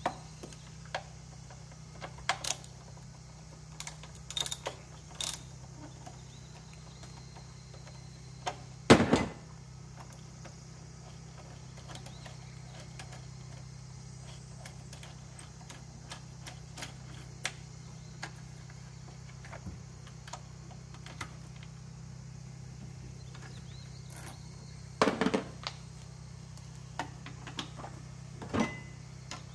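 Metal hand tools clicking and clanking against a Suzuki K6A engine as a long socket extension works the spark plugs loose. There are scattered sharp clicks, with two louder clattering knocks, one about a third of the way in and one near the end, over a steady low hum.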